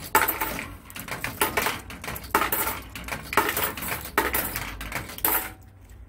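Coins being fed one after another into the coin mechanism of a coin-operated sneaker dryer to pay for a drying cycle: a sharp metallic clink with a short ring every half second to a second, stopping shortly before the end.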